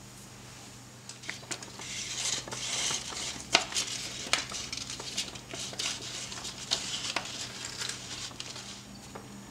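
A clear acetate cake collar rustling and crackling as it is fed down inside a stainless steel cake ring, with a few sharp clicks of plastic against the metal.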